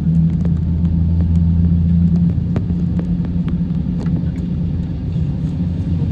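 Steady low drone inside the passenger cabin of an Airbus A350-900, its engines at low thrust before the takeoff roll. The drone eases slightly a little over two seconds in, and scattered light clicks and rattles come from the cabin fittings.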